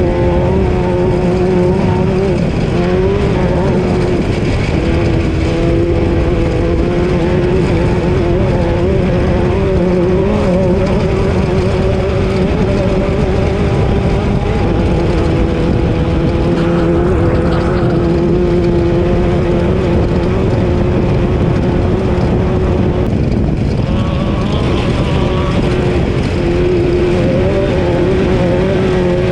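Class 12 off-road race car's engine running hard at fairly steady high revs with small rises and dips, under a constant rumble of the car crossing rough ground.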